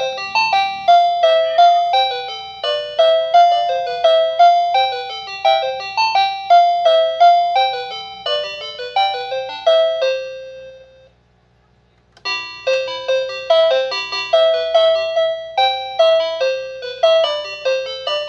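Children's toy telephone playing an electronic chime melody of quick, bright notes. The tune fades out about ten seconds in and starts again after a pause of about a second.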